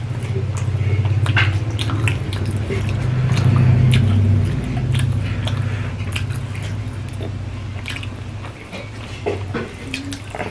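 Two people eating rice and fish curry with their hands: wet chewing and lip-smacking, fingers squishing rice against steel plates, with many short clicks. A low hum swells through the first half and fades after about six seconds.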